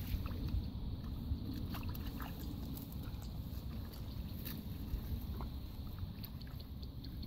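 Hands squelching and sloshing through wet mud and shallow muddy water, with scattered short splashes and squelches over a steady low rumble.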